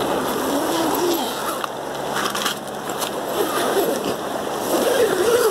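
A tent door's coil zipper being zipped closed, with rustling of the tent fabric. The slider has been squeezed tight with pliers, so it now meshes the teeth instead of leaving them split apart.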